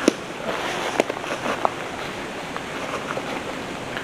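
Steady wind rushing on the microphone, with two short sharp clicks, one right at the start and one about a second in.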